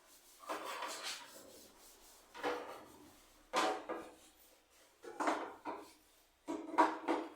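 Household objects being handled: a series of five or six short scraping and rubbing sounds, a little over a second apart, the last ones the loudest.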